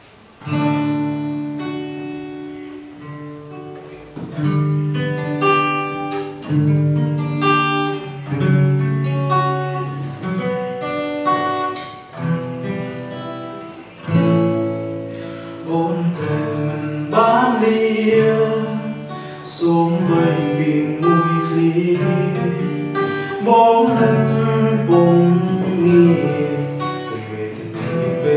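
Acoustic guitar played solo, picked chords ringing on in a steady rhythm.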